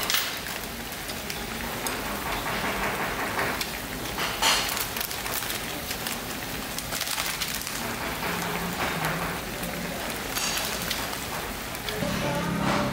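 Pot of budaejjigae (Korean sausage stew) boiling hard on a tabletop gas burner: a steady bubbling, sizzling hiss with a few sharper pops.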